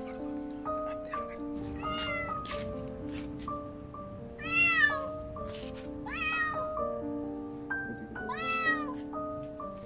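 A kitten meowing four times, each cry rising then falling in pitch, the second the loudest, over background music with a simple stepped melody of held notes.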